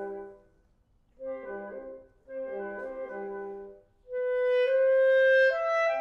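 Woodwind quintet of flute, oboe, clarinet, horn and bassoon playing classical chamber music: short chordal phrases broken by brief pauses. About four seconds in, a louder passage of long held notes begins, stepping upward, with the clarinet prominent.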